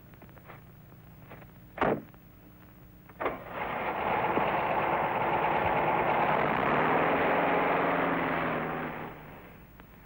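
Volkswagen Beetle's air-cooled flat-four engine bursting into life a few seconds in after two sharp knocks, then running loudly for about six seconds, its pitch rising before it fades away.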